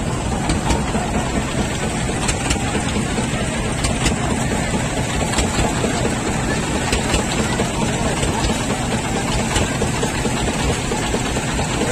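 A boat's engine running steadily, heard from on board as the boat moves along the river.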